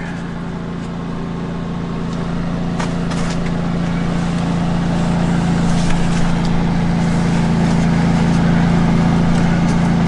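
Portable gas generator running at a steady speed: a constant low engine hum that grows a little louder over the seconds.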